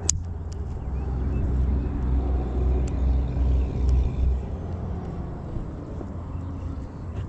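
Low rumble of wind buffeting the microphone while a baitcasting reel is cranked to retrieve a spinnerbait, with one sharp click just after the start.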